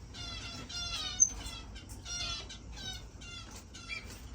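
Several small finches calling in quick succession: short, overlapping calls repeated many times, with a single high, sharp peep about a second in.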